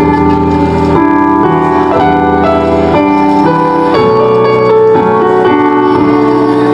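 Song accompaniment led by a piano-sounding keyboard, held chords and notes changing about every half second to a second, loud and steady.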